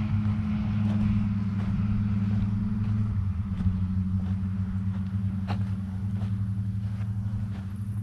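A motor engine running steadily with a low, rapidly pulsing hum; its pitch drops slightly about three seconds in. A few faint clicks sound over it.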